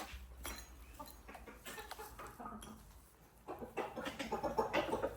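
Chickens clucking, short scattered calls that grow busier and louder after about three and a half seconds.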